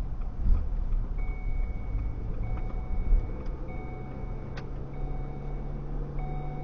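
Car driving slowly, heard from inside the cabin as a dash cam records it: a steady rumble of engine and road noise. From about a second in, an electronic beep repeats about every second and a quarter, with a single sharp click partway through.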